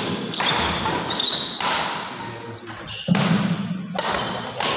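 Badminton rally: a quick series of sharp racket strikes on the shuttlecock, ringing in a large hall, mixed with footfalls and short high shoe squeaks on the wooden court floor.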